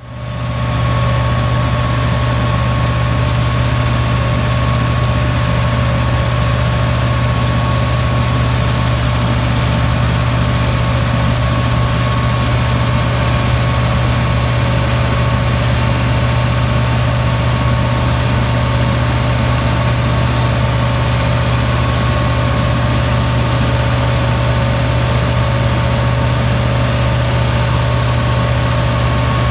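Massey Ferguson 385's four-cylinder diesel engine running steadily under load, driving a wheat straw chopper through its PTO shaft, with the chopper running alongside.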